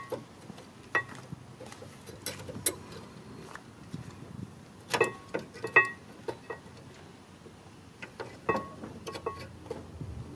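Steel brake pads and their metal retaining clips being handled and seated in a 2017 Kia Sedona's rear brake caliper bracket: scattered sharp metallic clinks with a short ring, loudest about five to six seconds in.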